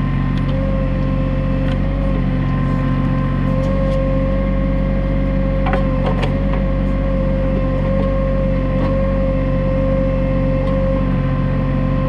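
New Holland TC33D compact tractor's diesel engine running steadily while working a Woods 7500 backhoe, with a steady whine over it. A few sharp knocks come about halfway through.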